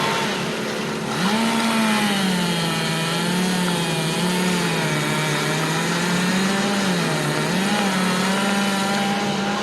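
Two-stroke chainsaw running under load while cutting tree wood: it revs up about a second in, then its pitch sags and wavers as the chain bites into the cut.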